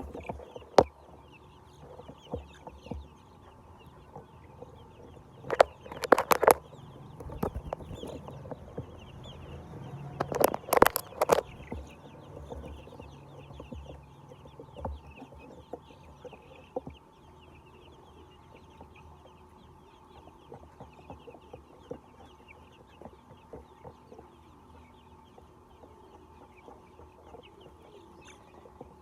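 A flock of chickens clucking and chattering, with two louder, sharper flurries about six and eleven seconds in.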